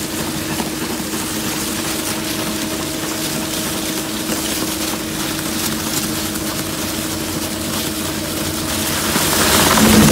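Model 760 plastic film shredder running with a steady hum as its toothed cutter shafts turn. Near the end it grows louder and noisier as the cutters start to grab and tear the plastic film.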